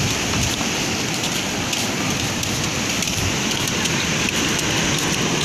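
Steady rush of ocean surf breaking against the concrete tetrapod breakwater.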